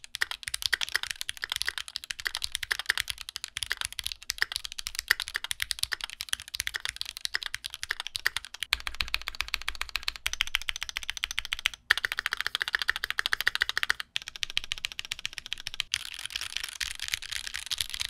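Typing on a stock Keychron Q2, a 65% aluminium-cased mechanical keyboard with a steel plate, gasket mount, factory-lubed Gateron G Pro Red linear switches and PBT keycaps. The keystrokes come quickly, with a few brief pauses. The sound is thin and higher pitched, with no spring ping or leaf ping, and there is some obvious spacebar rattle.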